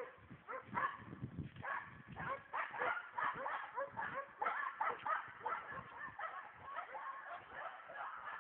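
Many short, overlapping dog-like yips and barks from several animals at once, several calls a second.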